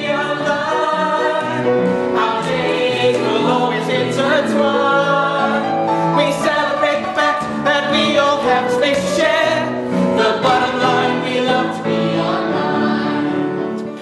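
A musical-theatre cast singing an upbeat song together in chorus with instrumental accompaniment, many notes held. The song fades out near the end.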